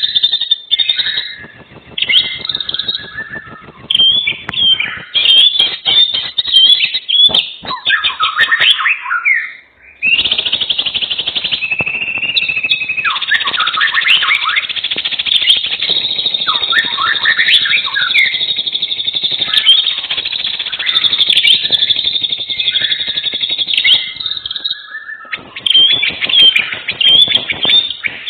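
Many songbirds chirping and twittering over one another in a dense chorus of quick rising and falling notes, briefly falling away just before ten seconds in.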